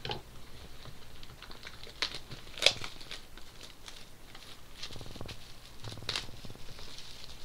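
A box of 2013-14 SPX hockey cards being opened by hand: wrapping crinkling and tearing and cardboard rustling, with scattered clicks and one sharp snap a little before three seconds in.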